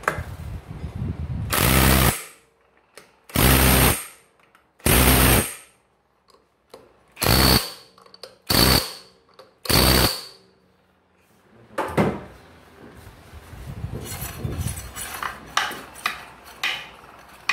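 Cordless impact wrench hammering nuts tight on a scooter's CVT drive: a run of about two seconds and two short bursts on the front variator nut, then three short bursts with a faint high ring on the rear clutch nut. After that come quieter clicks and rustling of hands fitting the drive belt.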